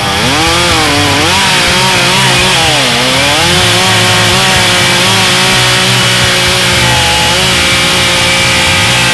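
Chainsaw mounted in a Granberg Alaskan chainsaw mill, running under load as it rips a log lengthwise. The engine pitch rises and dips a few times in the first three seconds, then holds steady through the cut.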